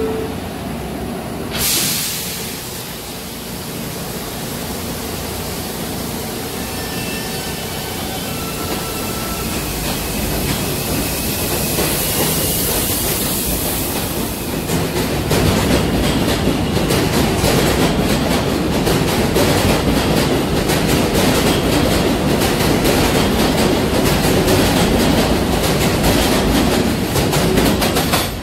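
New York City Subway A train pulling out of an elevated station. A sudden hiss of air comes about two seconds in, then the train gathers speed, its wheels clattering over rail joints more and more loudly as the cars pass close by.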